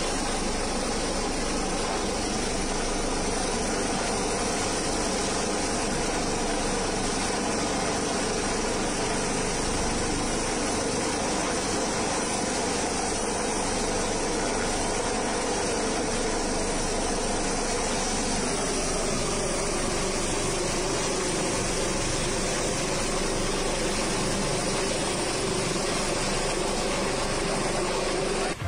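Search-and-rescue helicopter hovering low overhead: steady rotor and turbine noise, its pitch dropping slightly about two-thirds of the way through.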